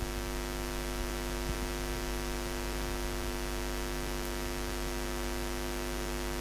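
Steady electrical mains hum with many evenly spaced overtones, a buzzing drone from the wired microphone's public-address sound system left open between recited phrases.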